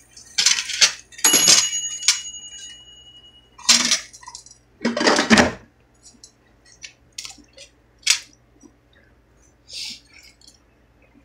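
Kitchenware clinking and clattering: a metallic clank about a second in rings on for a couple of seconds, among several louder knocks in the first half, then lighter ticks and taps.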